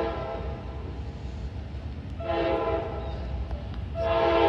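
Commuter train's multi-note air horn sounding repeated blasts as it approaches grade crossings. One blast ends just as the sound begins, a second lasts about a second starting about two seconds in, and a third starts near the end. A low rumble runs underneath.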